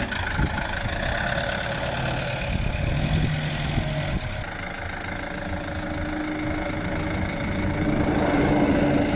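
An engine idling steadily, with a low steady hum that changes pitch about halfway through.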